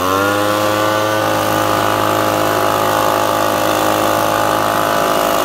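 Leaf blower revving up, rising in pitch over about the first second, then running steadily at full speed. It is blowing loose sand off a nailed torch-down base sheet to clear it for good adhesion.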